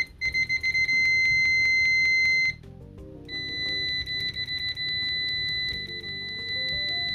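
Two multimeter continuity beepers sounding one after the other, each a steady high-pitched beep. The first is the older UNI-T UT39C+, loud, stuttering briefly before it holds and cutting off about two and a half seconds in. After a short gap comes the UNI-T UT136B+'s beep, clearly quieter, about 10 decibels less.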